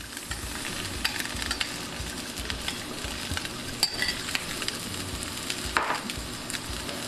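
Chicken sisig sizzling on a very hot sizzling plate: a steady frying hiss with scattered crackles and clicks.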